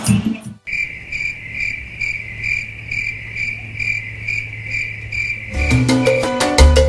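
Cricket chirping sound effect: a steady high trill pulsing about three times a second over a low hum, the stock 'crickets' gag for a long, uneventful wait. About five and a half seconds in, salsa music with drums starts.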